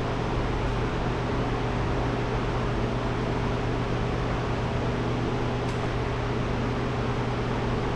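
Steady mechanical hum with a low drone and an even rushing noise, like a running fan or motor, unchanging throughout, with a faint tick about six seconds in.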